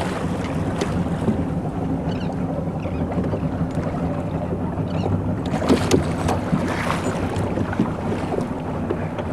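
Small motorboat's engine running steadily under way, with wind buffeting the microphone and water rushing along the hull. A few sharp knocks come about six seconds in.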